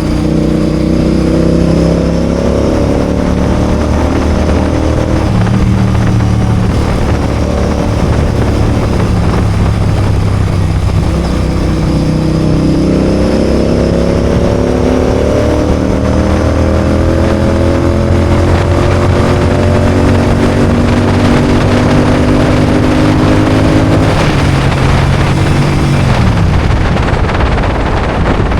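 Royal Enfield Continental GT 650's parallel-twin engine under way, its pitch climbing in steps as the bike accelerates through the gears, then dropping away near the end as the throttle is closed.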